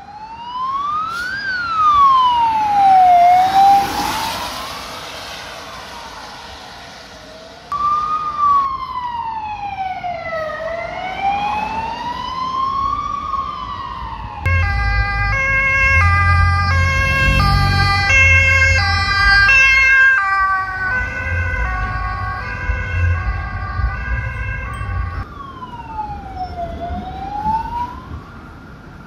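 Emergency vehicle sirens: a wail siren sweeping slowly up and down, about one rise and fall every three seconds, switching about halfway to a stepped two-tone horn over a heavy engine rumble, then back to a wail near the end, when an ambulance passes.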